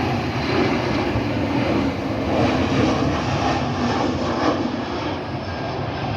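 Jet engines of an arriving Airbus A321-200 airliner, a steady broad jet noise with faint whining tones through it.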